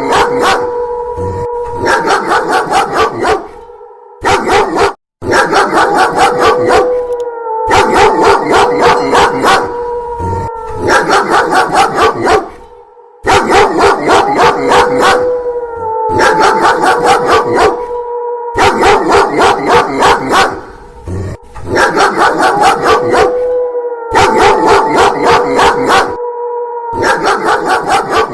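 Fast, loud dog barking layered with a long, drawn-out wolf howl. The same few-second passage repeats over and over, each time after a brief gap.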